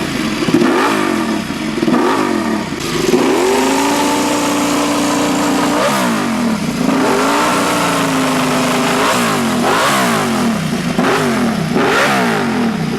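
Ducati Desmosedici RR's V4 engine revving: quick blips of the throttle with the pitch jumping up and falling back, and two longer held revs in the middle.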